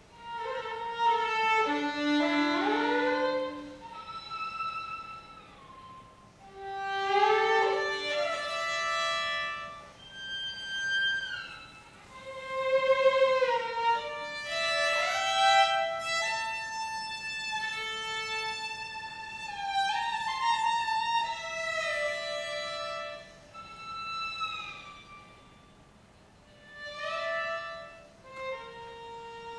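Solo violin playing a slow melodic line with slides in pitch between notes, in phrases that swell and die away.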